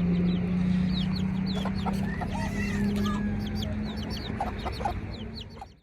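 Hens clucking among many chicks peeping in short, high cheeps, over a steady low hum. The sound fades out near the end.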